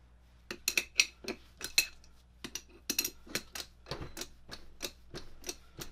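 Steel lathe tooling clinking and tapping together: a tool holder and wrench handled against the steel hex turret head. An irregular run of sharp metallic clicks, several a second, starting about half a second in.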